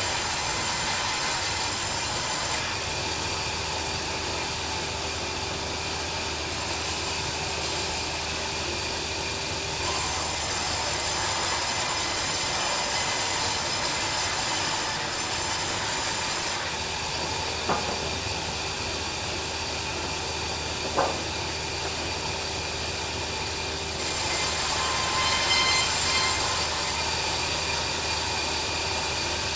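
Bandsaw sawmill running steadily, its blade cutting through a log, with the tone of the cut shifting every several seconds. Two short sharp knocks come a few seconds apart past the middle.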